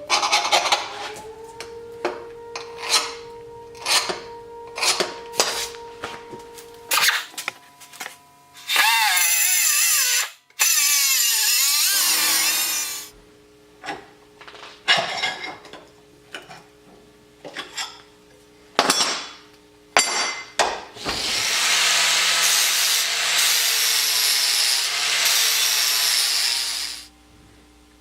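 A power tool cutting steel plate in two long runs, about 9 seconds in and again from about 21 to 27 seconds, its pitch wavering under load in the first run. Between the runs there are many sharp metal knocks and clatters as the plate is handled.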